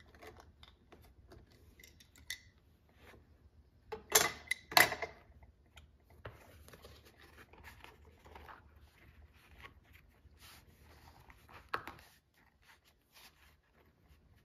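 A utility knife scoring and slicing through latigo leather along a steel straightedge, with faint scratchy strokes. About four and five seconds in come two loud, sharp clatters, then softer rustling and scraping as the cut leather is handled on the plastic cutting board.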